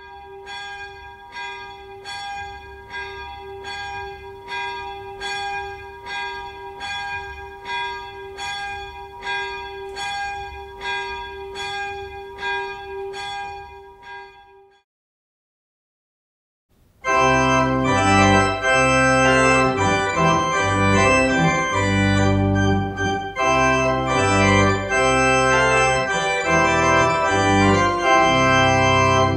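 Church pipe organ playing loudly with full chords and a deep bass, starting about halfway through. It is preceded by a quieter passage of evenly repeated struck notes over a held tone that cuts off, then about two seconds of silence.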